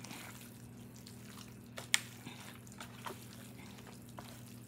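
Hand squishing and mixing moist cornbread dressing in a disposable aluminium foil pan: soft wet squelches and light ticks against the foil, with one sharp click about two seconds in. A low steady hum runs underneath.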